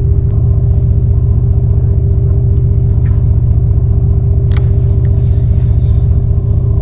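Boat engine running steadily, a low rumble with a constant hum. A single sharp click about four and a half seconds in.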